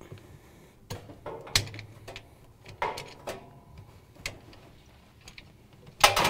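Scattered small clicks and knocks as the drain pump's retaining clips on a Whirlpool direct-drive washer motor are twisted a quarter turn and pulled out, with a louder clack near the end.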